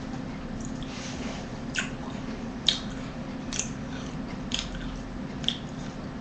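A series of short, sharp clicks, about one a second, over a steady low hum.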